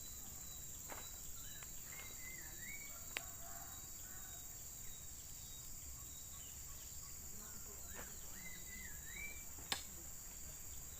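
Steady high-pitched buzzing of an insect chorus, with a short bird call whose pitch rises and falls in steps, heard twice, and two sharp clicks.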